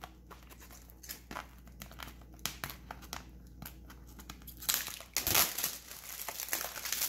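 Plastic shrink wrap on a trading-card box crinkling as the box is handled, with scattered small crackles and a louder stretch of crinkling about five seconds in.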